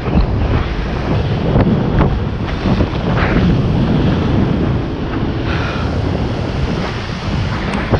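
Steady wind rumble on the microphone and rushing water spray from a water-skier being towed at speed behind a motorboat.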